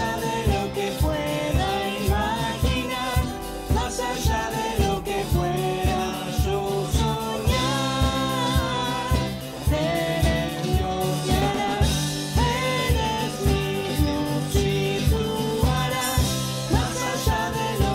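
Worship band playing a Spanish-language praise song: a woman leading with backing vocals, over acoustic and electric guitar, keyboard and drums keeping a steady beat.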